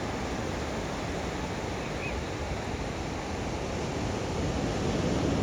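Ocean surf washing on a sandy beach, a steady rush that swells a little near the end, with some wind on the microphone.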